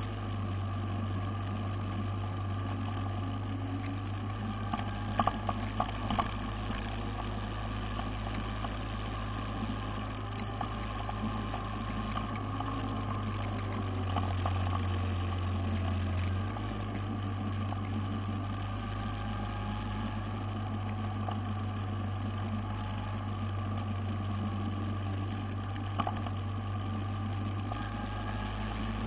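Motorcycle engine running steadily while riding, with road noise; the engine hum swells a little about halfway through. A few sharp knocks or rattles come about five to six seconds in and once more near the end.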